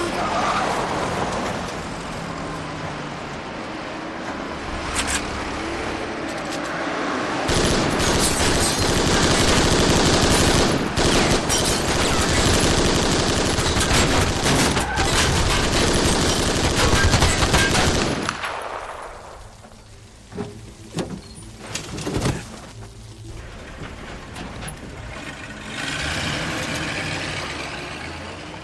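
Gunfire sound effect of shooting at an old car: a steady rumble for the first several seconds, then a long stretch of rapid automatic fire lasting about ten seconds, followed by a few separate single shots.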